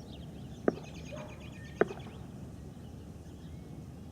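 Faint birds chirping over steady background noise, with two short sharp sounds about a second apart.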